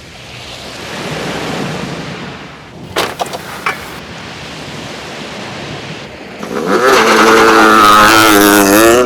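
Soft surf-like noise and a few clicks, then, about six and a half seconds in, a loud wavering squeal from car windscreen wiper blades chattering across the glass: the squeak of worn or cheap wiper blades.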